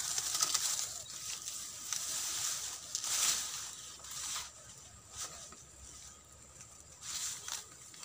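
Rustling of tall grass and leaves as a bamboo pole carrying a bird mist net is pushed through the brush, swelling and fading in irregular bursts.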